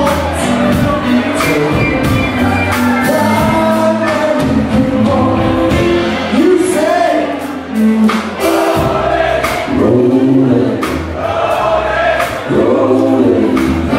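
Live band playing with a man singing lead into the microphone over keyboards and drums, the drums keeping a steady beat.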